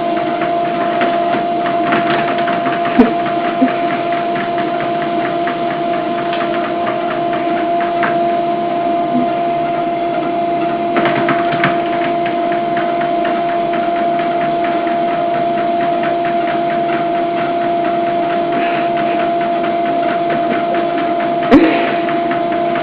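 Steady mechanical hum of a motor running at one unchanging pitch, with a sharp knock about three seconds in and another near the end.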